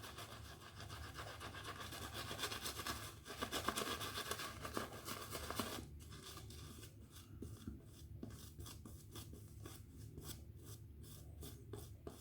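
GEM Featherweight single-edge safety razor scraping through lathered stubble: a continuous rasping for about the first six seconds, then a run of short separate strokes.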